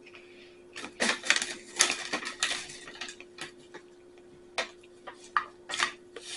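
Kitchenware clattering: a burst of rattling clicks and knocks for about two seconds, then a few single clicks.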